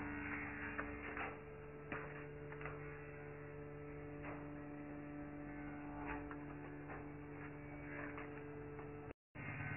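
Faint steady electrical hum made of a few held tones, with a few soft clicks and taps over it. The sound cuts out completely for a moment near the end.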